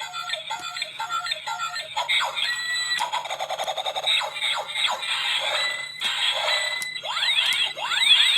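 Tinny electronic melody and sound effects from a toy's small built-in speaker: quick beeping notes at first, busier jingling after that, and a few rising swoops near the end.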